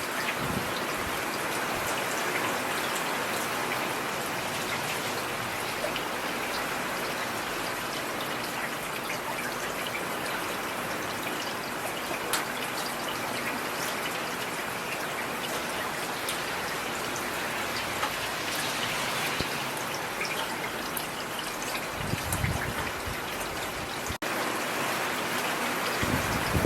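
Steady rain falling, an even hiss dotted with individual drop ticks. There is a brief low rumble about three-quarters of the way through.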